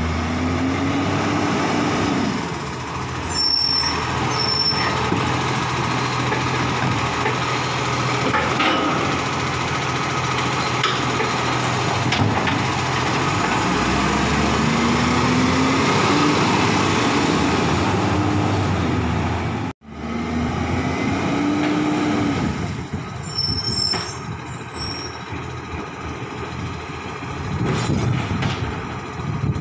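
Diesel engine of an Iveco side-loader garbage truck running, its pitch rising several times as it revs, with short high squeals from the air brakes twice.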